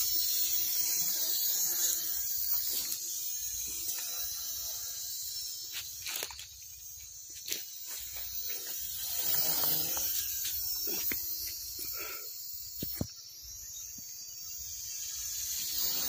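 Small toy quadcopter drone flying overhead, its electric motors and propellers making a steady high-pitched whine, with a few faint clicks.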